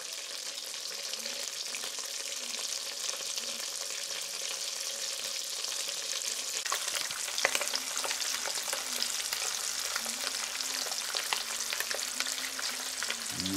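Butter sizzling and crackling in a hot frying pan, with sharper pops from about halfway, and whole yellow-eye mullet frying in it by the end.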